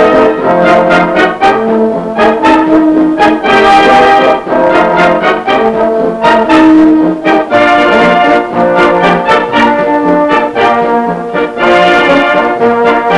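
Orchestral music led by brass, trombones and trumpets prominent, playing a series of loud held notes that change every second or so.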